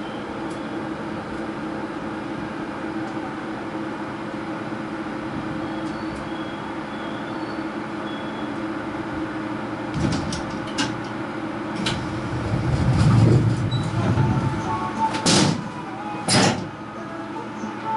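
Seoul Metro Line 5 subway train heard from the driver's cab: a steady running hum as it creeps to a halt at a station platform. From about ten seconds in come scattered clicks, a brief rumbling and two loud thumps a second apart.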